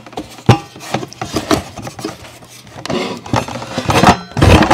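Clicks, knocks and rattles of a Ryobi cordless circular saw being handled against a wooden board while its base plate is set for depth of cut. The saw is not running. There is a sharp knock about half a second in and a louder clattering rustle near the end.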